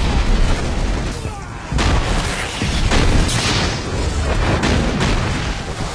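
A chain of explosions from a film's sound effects: deep booms going off one after another, with fresh blasts about two seconds in and again around three seconds in, as explosive charges detonate through a building.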